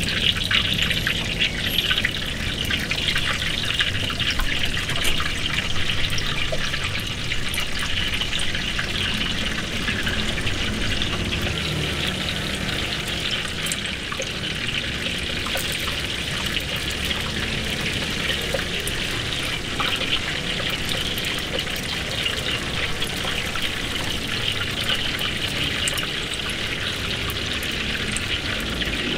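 Oyster fritters deep-frying in a wok of hot oil: a steady sizzle and crackle of bubbling oil, over a low rumble.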